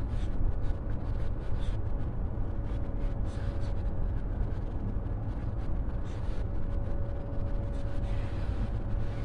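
Steady low rumble and hush of a large hall's background noise, with a faint steady hum and a few small rustles and ticks. No voices.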